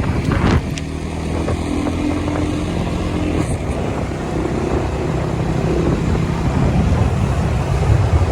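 Motorcycle engine running on the move, its note steady for a few seconds and then growing gradually louder.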